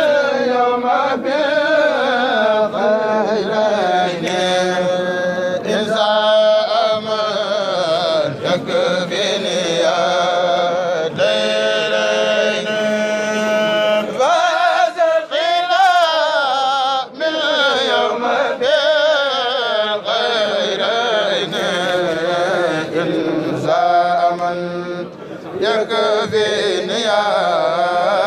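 A Mouride kourel chanting a xassida, a Sufi devotional poem in Arabic, with long, melismatic held notes and no instruments.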